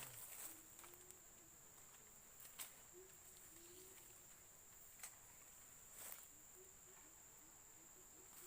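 Faint outdoor background: a steady high insect drone with a few soft clicks and rustles.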